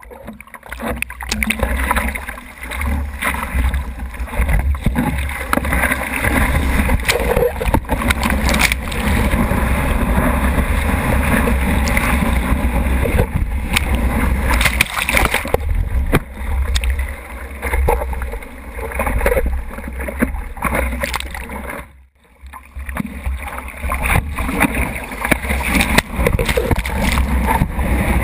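Whitewater rushing and splashing over a surfboard-mounted camera as the board rides a small breaking wave, with a heavy low rumble under it. The sound drops out briefly about three quarters of the way through.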